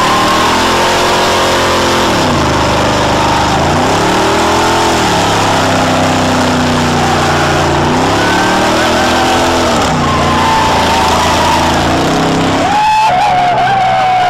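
Early-1960s Chevrolet Impala doing a burnout: the engine is held at high revs, its pitch rising and falling several times, over the hiss and squeal of the spinning rear tyres. About a second before the end the engine note drops away.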